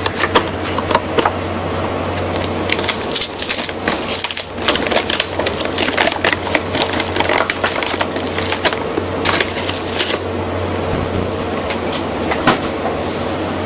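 Crinkling and crackling of a powdered-donut package being handled and opened, with irregular rustles and clicks that are densest through the middle and thin to a stray click near the end. A steady low hum sits underneath.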